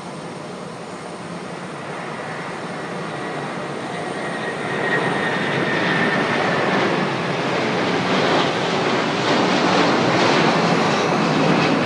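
Jet airliner's engines climbing out after take-off, a rushing roar that grows steadily louder as the plane passes overhead, with a high whine a few seconds in.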